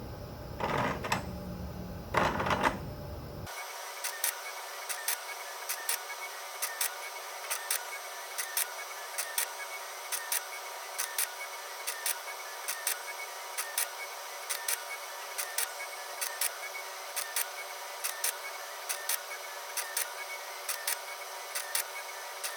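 Motors of a desktop robotic forming rig, its robot arm and arbor press, running through a pressing sequence. A steady electric whine is broken by sharp mechanical ticks about once or twice a second. Two louder rasping movements come in the first three seconds.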